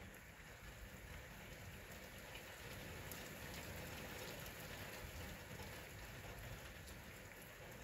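Steady rain falling, with scattered faint ticks of drops striking a surface.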